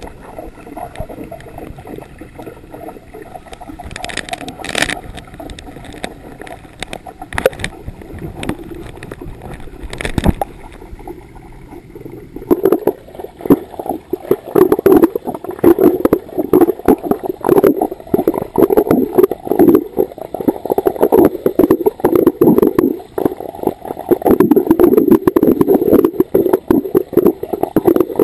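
Underwater gurgling of scuba divers' exhaled regulator bubbles, heard through a submerged camera. It is fainter with a few sharp clicks at first, then from about halfway through becomes loud, dense and rapidly pulsing.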